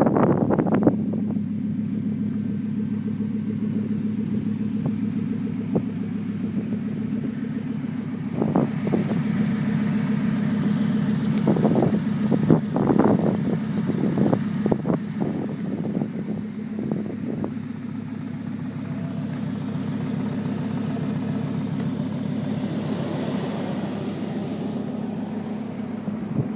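1996 Volvo 850R's turbocharged 2.3-litre five-cylinder engine running steadily. Sharp clicks come in short clusters about a third of the way in and again around the middle. The owner hears a tick from the driver's side of the engine that comes and goes, and can't tell whether it is normal.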